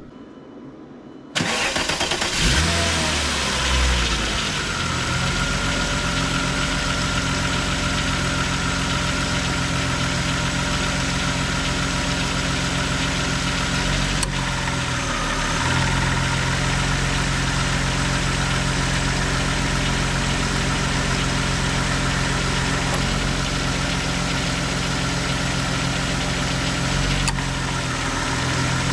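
2000 VW Eurovan's VR6 engine cranks and starts about a second in, then idles steadily, its note shifting about halfway through. The belt drive runs with no bearing noise from the freshly replaced A/C compressor clutch and pulley bearing.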